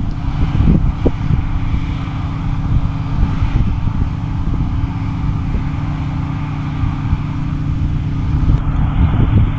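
Large diesel farm machine engine running steadily with a low, even drone, with wind buffeting the microphone in the first second or so.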